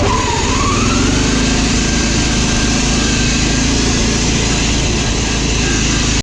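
Riding lawn mower engine running under load. Its pitch dips briefly about half a second in, then climbs and holds steady.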